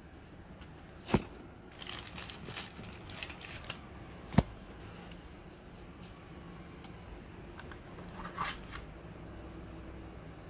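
Glossy foil trading cards (Panini Revolution basketball cards) being handled and shuffled by hand: rustling and sliding card stock with scattered small clicks. Two sharper clicks come about one second and about four seconds in, the second the loudest.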